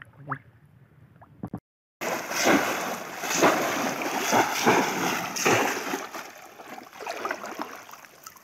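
Water splashing hard and repeatedly as conical bamboo fish traps are plunged into shallow river water, surging roughly once a second. It starts faint, turns loud about two seconds in and eases off near the end.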